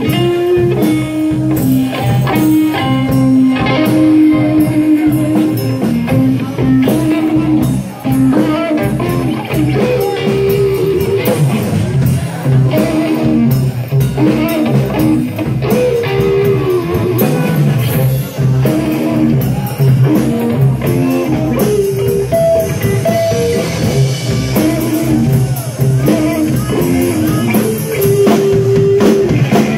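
A blues psychedelic rock trio playing live: an instrumental passage of electric guitar lines with bent, sustained notes over a rock beat on a drum kit.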